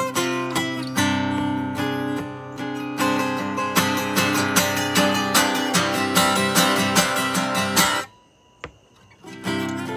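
Solo acoustic guitar strummed and picked with a pick, the accents falling about every half second in the middle. The playing stops suddenly about eight seconds in and starts again near the end.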